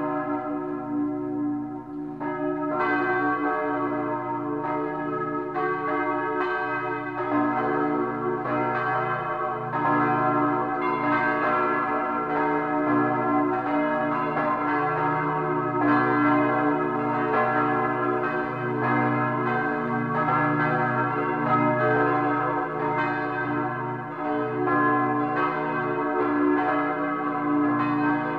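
Church bells pealing: several bells struck in turn roughly once a second, their tones ringing on and overlapping.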